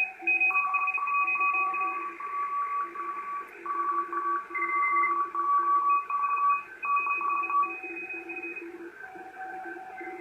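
Morse code (CW) signals from an Icom IC-718 HF transceiver: several stations' keyed tones at different pitches beep on and off at the same time, overlapping, over a faint hiss.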